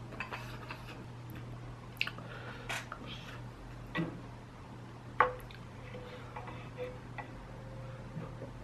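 Close-miked eating sounds: chewing and small mouth clicks, with utensils clicking and knocking against the pot of stew. The loudest knock comes about five seconds in.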